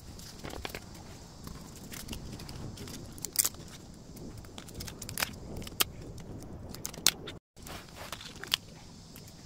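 Close handling noises of a paper necklace display card and a thin metal chain being hung and held: scattered small clicks, taps and paper rustles.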